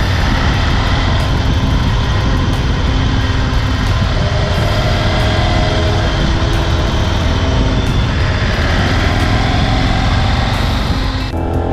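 Motorcycle under way at road speed: steady engine running beneath a heavy, even rush of wind noise.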